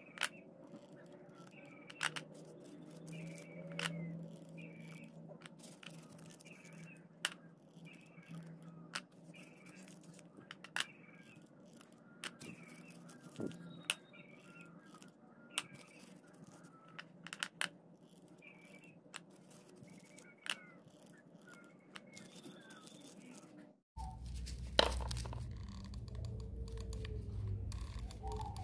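Paper cupcake liners rustling and crinkling as they are handled and glued, with scattered sharp clicks over a faint steady hum and faint high chirps. Near the end the sound changes to a louder low rumble with a loud click.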